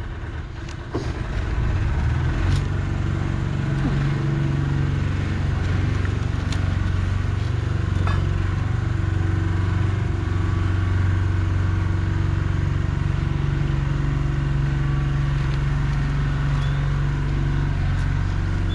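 An engine running steadily, a low hum that grows louder about a second in, with a few light knocks over it.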